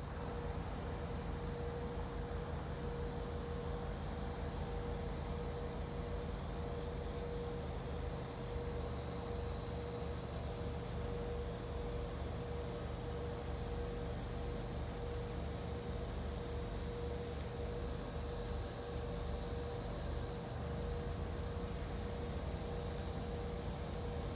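Low, steady rumble of an EMD SD9 diesel locomotive's engine running, with a constant high insect trill over it.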